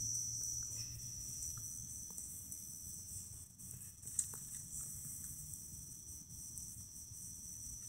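Insects trilling: a faint, steady, high-pitched buzz, with a weak low hum underneath.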